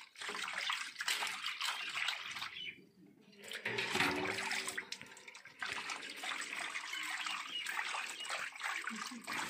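Water pouring and splashing as small fish are rinsed by hand in a steel plate, with water poured over them from a small steel pot. About four seconds in there is a short low gurgle as the pot is dipped into a bucket of water.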